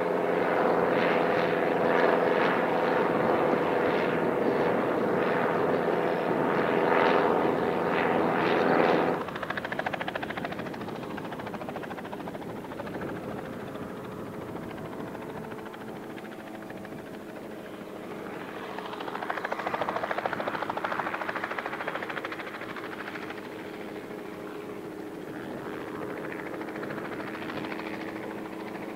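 A helicopter and the B.E.2 biplane's engine sound together in flight. After a cut about nine seconds in, the biplane's engine alone runs steadily and more quietly as it comes in to land on grass. It swells briefly around twenty seconds in as the aircraft passes low, then eases off near the end.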